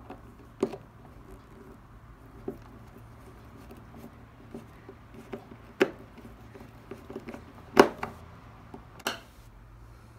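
Screwdriver turning a screw into the plastic cover plate of a Husqvarna 236e chainsaw's clutch cover and chain brake assembly: scattered light clicks and taps of the tool and plastic parts, the loudest click nearly eight seconds in.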